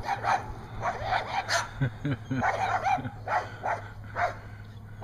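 Several dogs barking at each other in a rapid, irregular series of short barks and yips.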